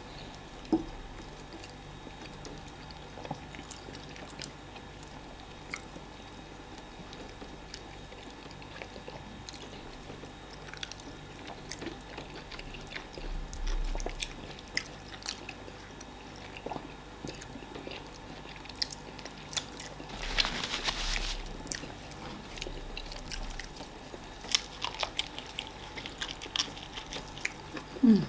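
People eating fufu and egusi soup: scattered wet chewing and biting clicks, with a louder rustling, slurping sound about twenty seconds in.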